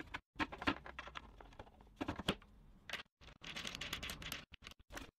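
A run of light clicks, taps and knocks from small parts being handled by hand at the workbench, with a longer scrape about three and a half seconds in.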